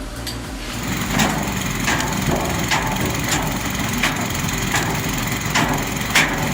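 Wood-processing machine running steadily, with sharp cracks of wood at an even pace, about one every 0.7 seconds.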